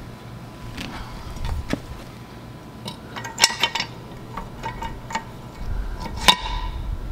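Light clinks and taps of an outboard propeller being fitted by hand onto its splined prop shaft, with a cluster of clinks about three and a half seconds in and one sharp click near the end.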